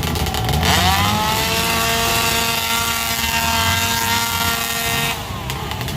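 ATV engine revving: it climbs sharply about a second in, holds at high revs for about four seconds, then drops off near the end.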